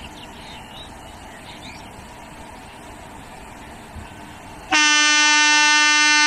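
Horn of an approaching Indian Railways WAG7 electric locomotive, one long steady blast that starts suddenly about four and a half seconds in. Before it, only faint open-air background with a few bird chirps.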